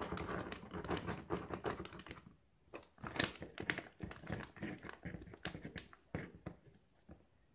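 Crinkling and small clicks of a foil-lined freeze-dried meal pouch as its zip-lock top is pressed shut, followed by the rustle of a paper pouch being folded closed. The sound comes in irregular crackles and ticks, with a short pause partway through.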